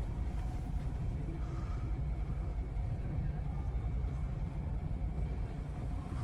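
Steady low engine rumble with a faint steady hum above it, unchanging throughout.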